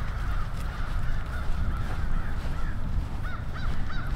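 Wind buffeting the microphone, with birds calling over it, ending in a run of short, evenly spaced calls, about three a second.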